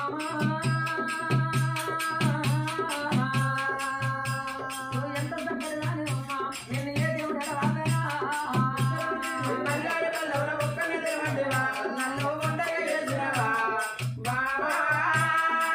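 Oggu Katha folk ballad music: a voice singing long held, wavering notes over a steady drum beat and constant rattling, jingling percussion.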